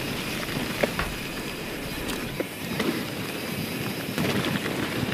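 YT Jeffsy 27 mountain bike rolling down a dirt trail: steady tyre noise over packed dirt and leaf litter, with a few light clicks and rattles from the bike.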